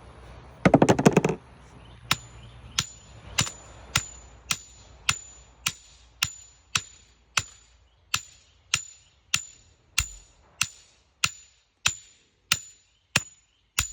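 Steady, evenly spaced blows of a heavy metal-headed striking tool pounding a stake for a clothesline, about one every 0.6 s, each with a short high metallic ring. A brief loud rattle comes about a second in, before the blows begin.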